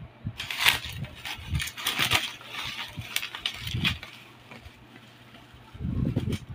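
Plastic bubble wrap crinkling and crackling as it is handled and pulled from a cardboard box, with a few sharp crackles in the first half, then dull handling bumps near the end.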